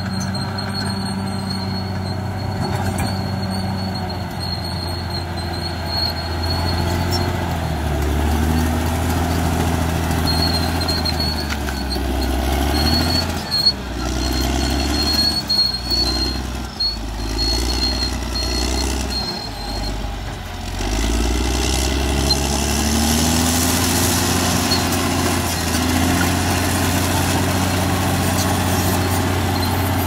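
Diesel engine of a Caterpillar D6R crawler bulldozer running steadily under work. Its pitch dips and rises several times in the middle, with a few short loud jolts.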